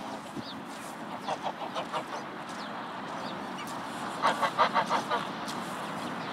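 Canada geese calling: a few short calls between one and two seconds in, then a louder quick run of calls about four seconds in.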